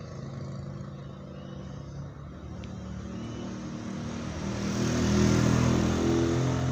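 Small motorcycle engines going by on a road: a steady engine hum that swells from about halfway as a motorcycle approaches and is loudest near the end.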